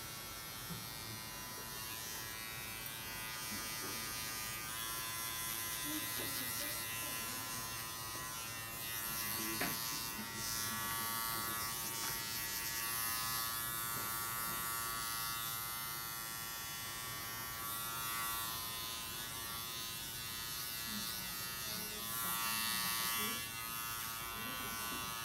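Electric hair clipper running with a steady buzz as it cuts short hair on the top of the head, guided over a comb.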